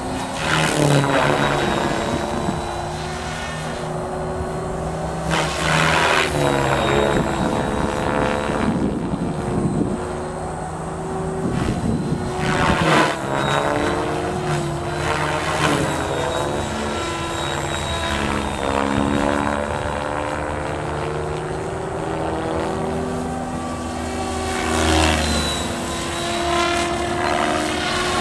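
Electric Mikado Logo 600 RC helicopter on a 12-cell battery flying aerobatics: rotor blades and motor whine, the pitch rising and falling as it manoeuvres, with repeated swells of blade noise.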